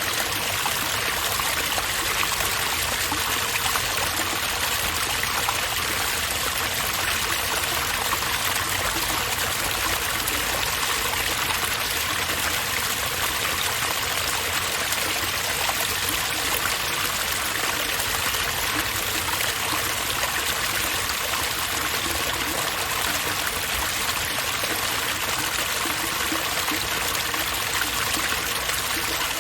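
Running water of a water fixture, flowing steadily as an even, unbroken rush.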